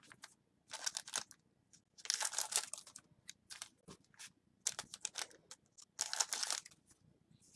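Foil trading-card pack wrappers crinkling and being cut open, in several short bursts about a second apart.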